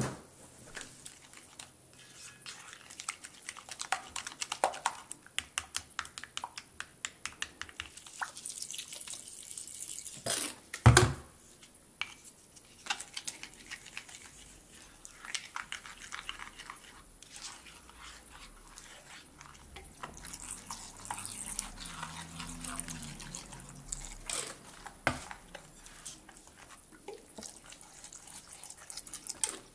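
Small plastic spoon stirring a wet clear-glue slime mixture in a glass bowl: rapid clicks and taps of the spoon against the glass with sticky, wet squishing. One much louder knock about eleven seconds in.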